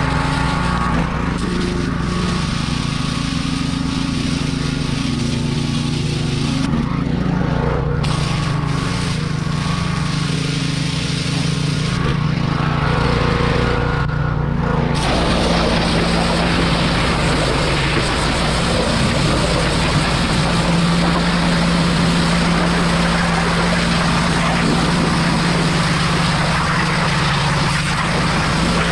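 Small-engine pressure washer running steadily, with the hiss of its water jet spraying on a Jeep's engine bay and front end. The spray cuts out briefly a couple of times in the first half, then runs without a break from about halfway through.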